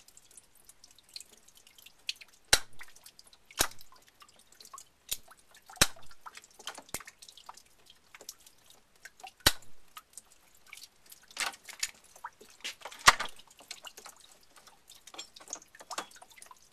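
Water dripping from a drained hot-water PEX line: single sharp drops at irregular gaps of a second or more, some much louder than others. The water is cold water leaking back into the empty line through a leaking tub faucet valve.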